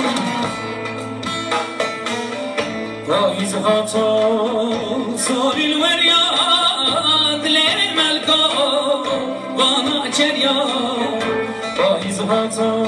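Kurdish song played by a live band of long-necked saz, keyboard and drums, with a male voice coming in about three seconds in and singing an ornamented, wavering melody.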